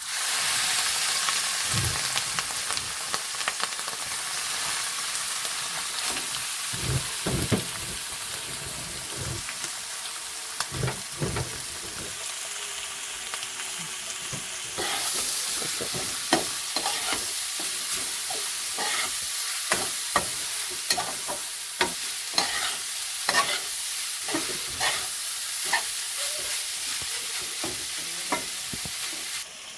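Minced chicken frying in hot oil in a pan, with a steady sizzle that starts suddenly and grows louder about halfway through. A spoon stirs it, clicking and scraping against the pan.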